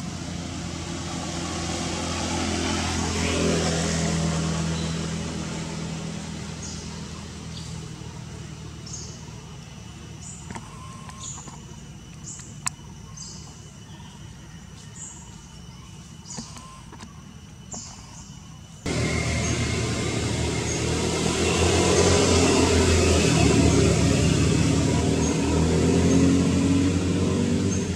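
Outdoor background noise with a low engine-like rumble that swells about three to four seconds in and then fades, and short high chirps through the middle. The noise jumps abruptly louder about nineteen seconds in.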